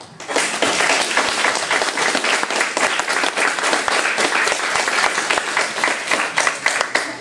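An audience applauding: dense clapping that starts just after the beginning and stops abruptly near the end.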